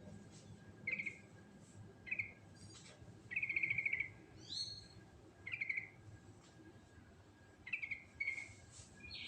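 Yellow-vented bulbul (trucuk) singing: short bubbling, trilled phrases repeated about once a second, a few of them ending in rising notes.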